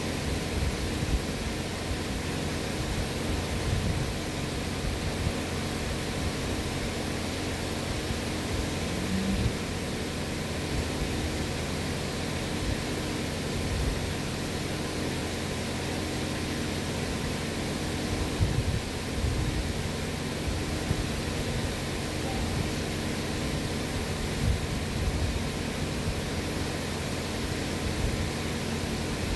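Electric pedestal fan running with a steady rushing noise and a low hum, with occasional low bumps.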